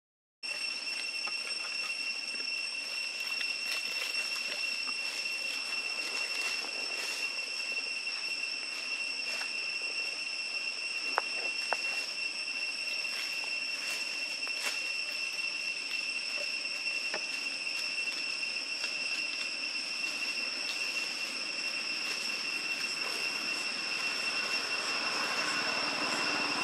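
Insects droning steadily at one high pitch, with a few faint clicks about halfway through.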